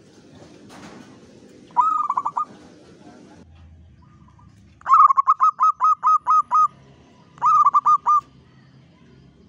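Zebra doves (perkutut) cooing in their song: a short run of rapid, clipped coos about two seconds in, then, from a second bird, a long run of about ten quick coos and a shorter run of about five near the end, all on one pitch.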